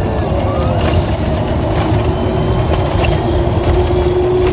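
Test Track ride vehicle speeding around the outdoor banked loop: a loud, steady rumble of wheels on the track with rushing air, and a steady whine that comes in about halfway through and creeps slightly up in pitch.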